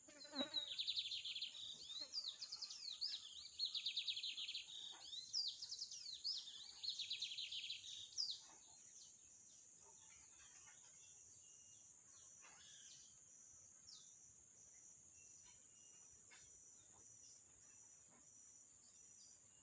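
Bird chicks calling: bouts of rapid trills and sharp chirps with quick falling notes for about eight seconds, then only a few faint chirps. A steady high-pitched drone runs underneath.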